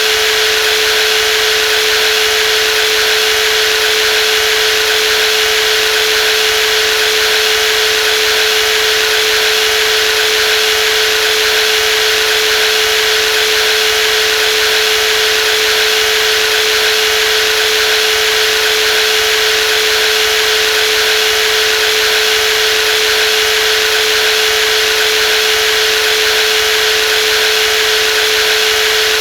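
Brushless jigsaw running continuously at a steady speed, a constant high whine over a dense buzz with no change in pitch or level.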